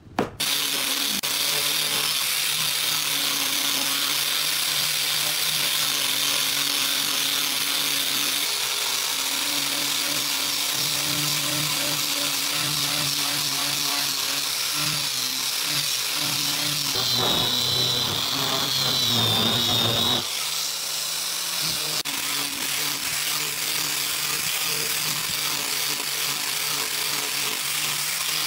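Angle grinder fitted with a foam-backed sanding pad running steadily and sanding wooden boards: a motor hum under a sanding hiss. Past the middle, for about three seconds, a wavering whine and heavier grinding come in, then the sound settles a little quieter.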